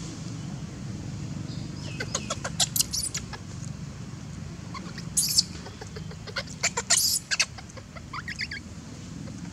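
Baby macaque giving short, high-pitched squeaks and squeals in several bursts, some rising in pitch, over a steady low rumble.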